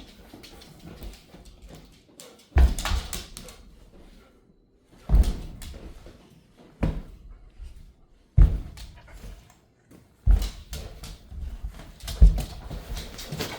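A dog knocking repeatedly at something it wants: six heavy thumps about two seconds apart, each trailing off briefly.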